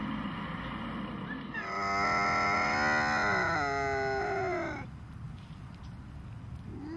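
Bobcat caterwauling: one long, drawn-out yowl of about three seconds that holds its pitch and then falls away, with a second yowl starting near the end.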